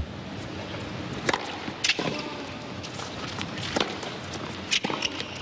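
Tennis rally: a ball struck back and forth by rackets, each hit a sharp pop about one to two seconds apart, with lighter ball bounces between, over a faint crowd hum.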